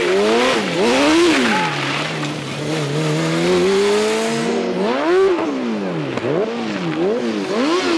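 Formula SAE race car's four-cylinder Honda CBR600 engine revving up and down in quick sharp swings, with a longer, steadier climb in revs in the middle, as the car is driven in a drift.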